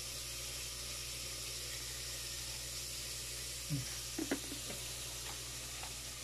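Steady background hiss over a low electrical hum, with a spoon faintly mixing a crab-stick and mayonnaise filling in a bowl. A brief murmur of voice comes about four seconds in.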